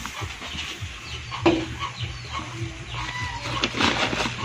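Chickens clucking, several short calls.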